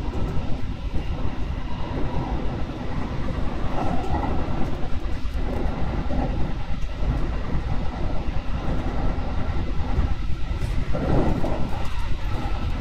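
Electric passenger train running along the track, heard from inside the lead car: a steady rumble of wheels on rails with a light clatter over rail joints.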